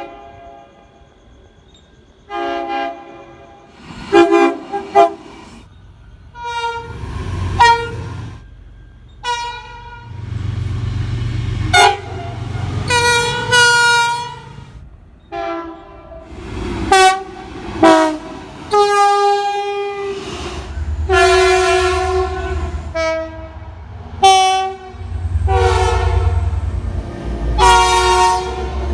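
Locomotive air horns blowing a series of short and long blasts, each a chord of several steady notes. Under some of the blasts, near the middle and again near the end, runs the low rumble of a train going by.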